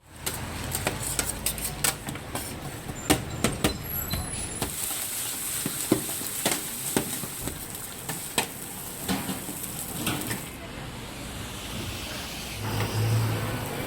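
Metal spatulas clacking and scraping on a hot teppanyaki griddle while fried rice cooks, with a loud sizzle from about four to ten seconds in. A low rumble of street traffic sits underneath, strongest at the start and near the end.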